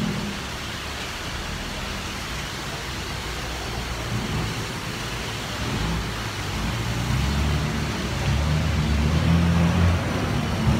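Heavy rain hissing steadily on a flooded street, with vehicles driving through the water. A large truck's engine grows louder in the second half and is loudest near the end.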